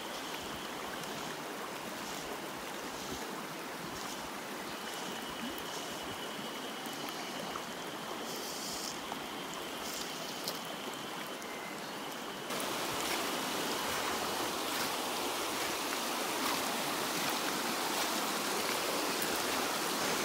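Shallow river running over stones and gravel: a steady rush of water, which gets suddenly louder about twelve seconds in.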